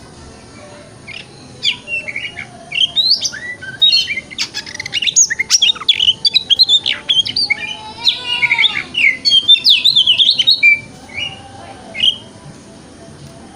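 Oriental magpie-robin singing a fast, varied run of whistles and chirps, starting about a second and a half in and stopping about twelve seconds in.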